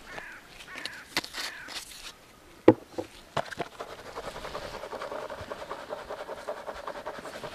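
A crow caws a few times at the start, a couple of sharp clicks follow, and then a spinning fishing reel is wound in steadily with a fast, even ticking, as the feeder rig is retrieved.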